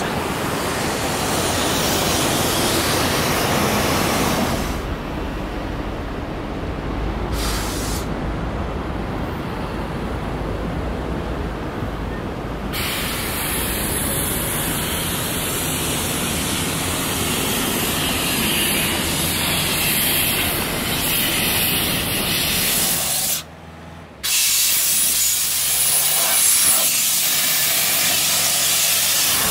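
Steady rushing hiss of wind and moving water at a lagoon mouth opening into the surf. Near the end, a hose sprays water against an excavator's tracks, with a diesel engine running faintly beneath it.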